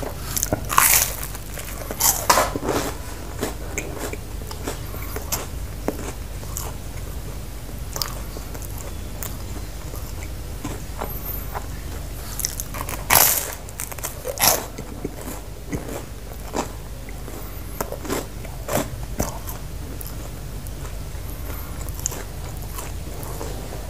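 Close-miked eating sounds of bread: crisp, crunchy bites and chewing. Loud clusters come near the start and again about halfway through, and smaller crunches thin out after that.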